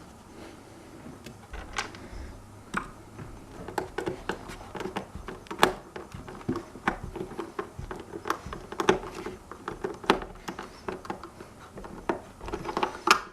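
Irregular light clicks and taps of small screws and parts being handled against a self-balancing scooter's plastic shell during reassembly.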